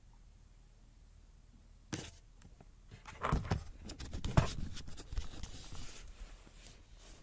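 Quiet at first, then from about two seconds in, handling noise as the camera is picked up and moved over blankets: rustling and scraping with sharp knocks, the loudest about halfway, fading to a lighter rustle near the end.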